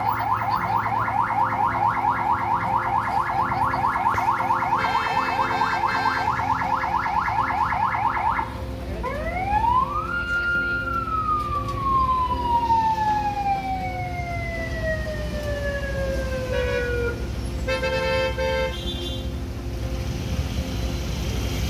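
Electronic siren sounding a fast warbling yelp for about eight seconds, then switching to a wail that rises quickly and falls slowly over about seven seconds. Short beeping blasts come twice, about five seconds in and near the end.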